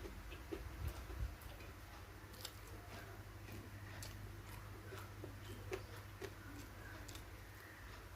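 A person eating close to the microphone: chewing a meal of rice, sambal goreng and kerupuk crackers, with small crisp clicks and crunches at irregular intervals.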